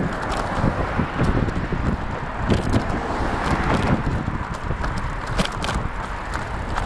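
Wind rushing over the microphone of a moving bicycle, with irregular sharp clicks and knocks as the bike rattles along.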